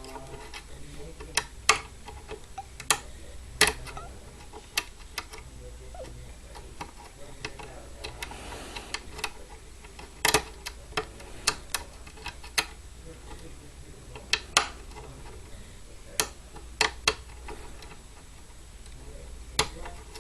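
Irregular sharp metallic clicks of a lock pick working the pin tumblers of a mortise cylinder loaded with spool and serrated security pins, as the pins are lifted and set under tension.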